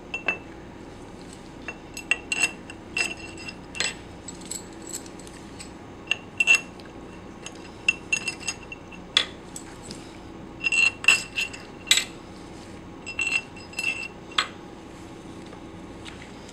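Small metal parts and screws clinking and clicking together as they are handled and set in place, in irregular sharp clinks with a short ring, some in quick clusters.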